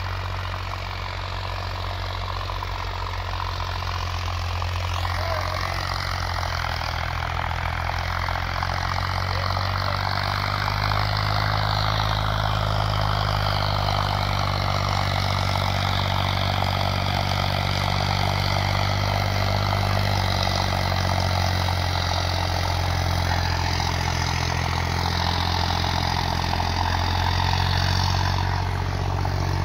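Farmtrac 60 tractor's diesel engine running steadily under load as it pulls a tillage implement across a field. It grows louder over the first ten seconds or so as the tractor comes closer, then holds.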